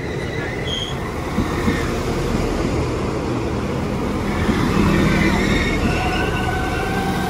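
Class 195 diesel multiple unit moving through the station, with a steady rumble of engine and wheels. Faint squealing tones from the wheels or brakes come in over the second half.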